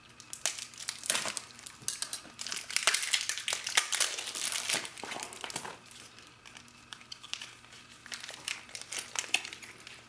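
Clear plastic wrap and brown packing tape crinkling as they are handled and pulled apart by hand, in irregular crackles that are densest in the first half.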